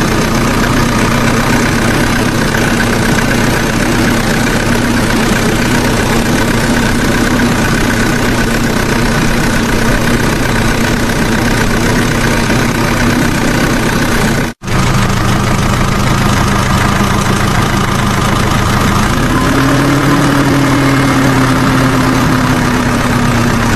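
A motor vehicle engine idling steadily, likely a tractor engine sound effect dubbed over the toys. It cuts out for a moment about two-thirds of the way through, then carries on with its note a little higher near the end.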